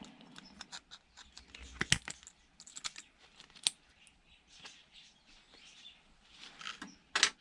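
Scattered light clicks, taps and short scrapes of hand tools working on small metal and plastic electronics parts during a teardown, with a sharper knock about two seconds in and another just before the end.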